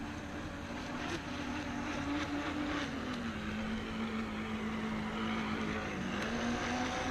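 Radio-controlled model boat's motor running as the boat speeds across the water: a steady hum that drops lower in pitch about three seconds in and rises again near the end, over a background hiss.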